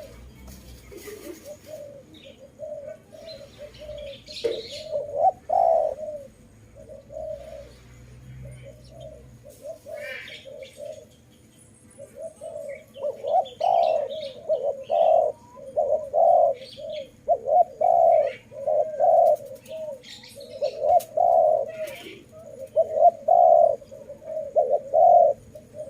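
Spotted dove cooing, a low note repeated over and over: faint at first, then from about halfway a louder, steady run of coos. Faint higher chirps sound now and then.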